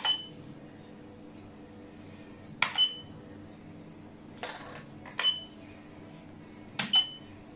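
Xiangqi pieces clacked down on a wooden board in quick moves, several sharp clacks about every two seconds, some of them in pairs. Most are followed by a short beep.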